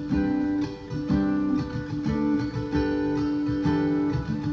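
Acoustic guitar strummed and picked, chords ringing with a fresh attack about every half second, an instrumental passage between sung lines.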